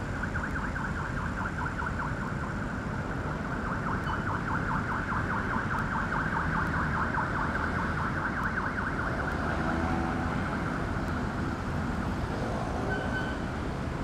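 An electronic alarm tone pulsing rapidly at a steady pitch, over the low rumble of traffic; the pulsing fades out about ten seconds in.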